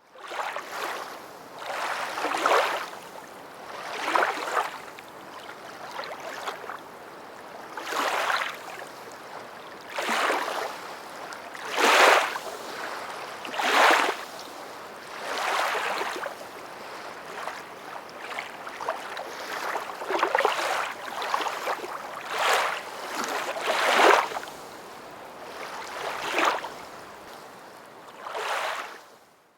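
Ocean water splashing and washing in short surges, one about every one to two seconds, as small waves break and lap.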